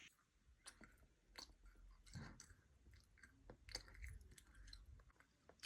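Faint close-up eating sound: food being chewed, with soft irregular crunches and mouth clicks.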